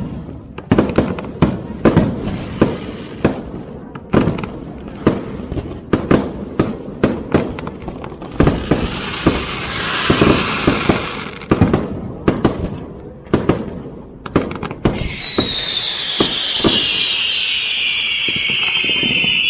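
Aerial fireworks display: rapid volleys of shell bursts going off one after another, with a stretch of dense crackle about halfway through. Near the end, a loud high whistle slides slowly down in pitch over several seconds.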